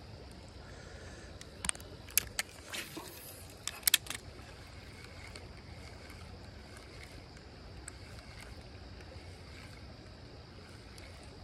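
Steady rush of creek water, with a cluster of sharp clicks and knocks between about one and a half and four seconds in.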